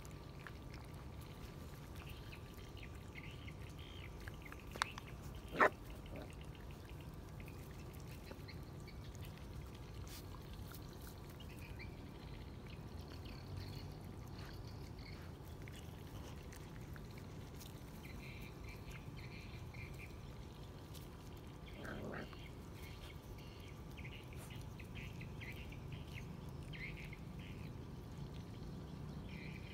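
A litter of puppies eating from a plastic bowl of rice: faint chewing, lapping and smacking, with two sharp clicks about five seconds in. A low steady rumble runs underneath.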